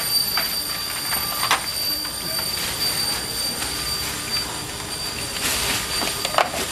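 Black plastic bag rustling and crinkling in short bursts as it is cut and pulled open with a box cutter, over a steady high-pitched whine.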